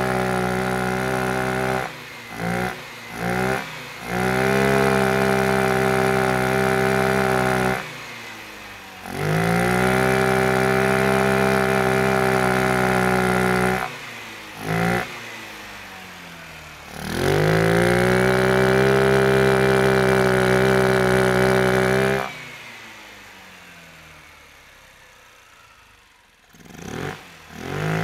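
Taotao 150cc scooter's single-cylinder four-stroke engine being revved hard, held at high revs, around 7,000 rpm, for stretches of several seconds. Between the stretches the throttle is snapped shut and the revs drop away, with a few quick throttle blips, and one long run-down near the end. The air filter is out of the airbox, so the intake is open.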